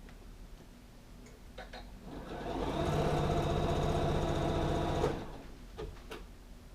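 Sewing machine stitching through blanket fabric in one run of about three seconds, starting about two seconds in and stopping abruptly, with a few light clicks around it.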